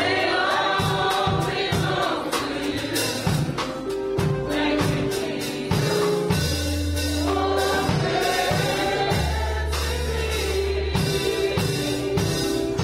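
Live gospel music: a choir singing over a band, with drum hits on a steady beat and sustained low bass notes.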